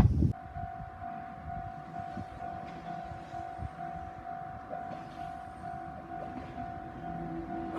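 Japanese railway level-crossing warning bell sounding its electronic ding-ding at about two strokes a second, the signal that a train is approaching.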